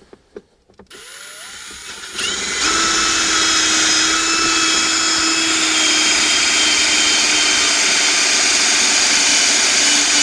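Electric drill with a step drill bit spinning up about a second in, rising in pitch, then running steadily at speed as it drills out the hole in the lighter's mounting plate.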